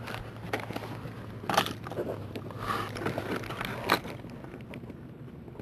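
Handling noise of a camcorder rubbing against a surface: irregular scraping and crackling, with three louder scuffs about a second and a half, just under three seconds and about four seconds in.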